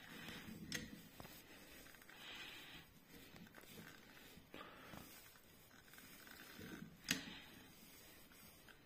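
Manual caulking gun being squeezed to push sealant out onto a wall panel: faint squishing and creaking, with two sharp clicks, one less than a second in and a louder one near the end.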